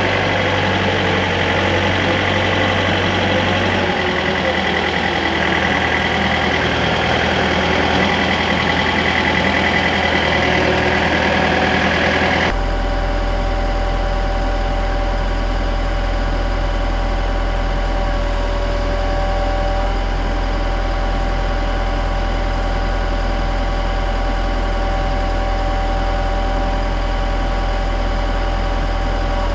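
Engine of a lift running steadily, its tone changing abruptly about twelve seconds in.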